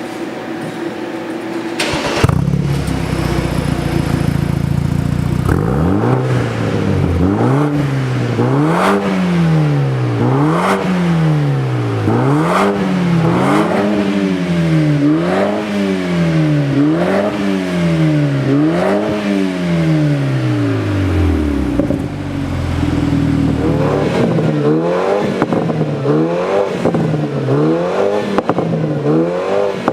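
BMW 428i's turbocharged four-cylinder engine through an aftermarket Switzer exhaust, idling, then revved repeatedly: about eight slow, even rises and falls in engine speed, a brief idle, then quicker blips about once a second.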